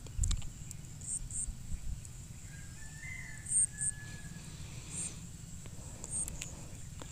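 Cardboard shipping box being opened by hand: light scattered knocks and rustles as the taped flaps are pulled apart and the bubble wrap inside is touched. Short high chirps, several in pairs, sound in the background.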